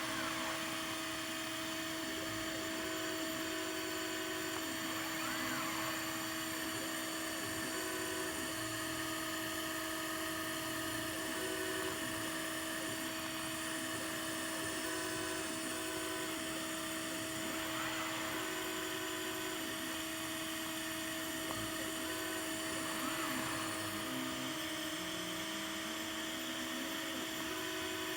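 Homemade laser CNC engraver running: a steady electrical hum with its stepper motors whining in short, repeated on-off tones, and now and then a brief rising-and-falling whine as the head speeds up and slows down.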